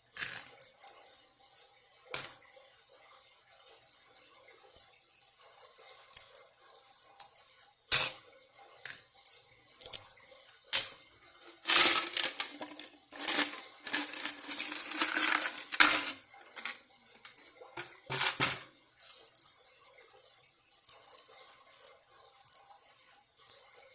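Loose coins clinking as change is sorted and counted by hand: scattered single clicks, with a few seconds of dense jingling about halfway through as many coins move together.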